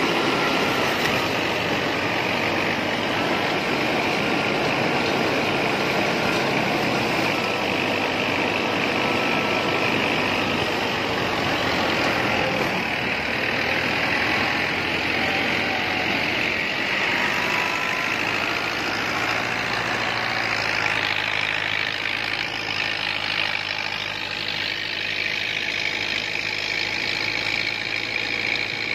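Batala thresher, tractor-driven through belts and pulleys, running steadily under load as crop sheaves are fed in, its threshing drum and blower making a dense, continuous mechanical noise over the working New Holland 640 tractor engine that powers it.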